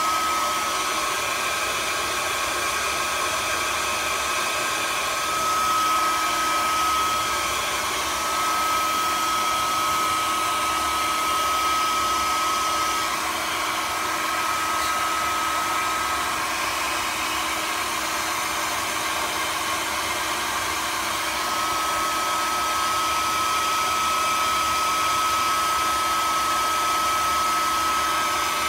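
A small electric blower motor running steadily: an even rush of air with a thin high whine over it that drops out for a few seconds past the middle.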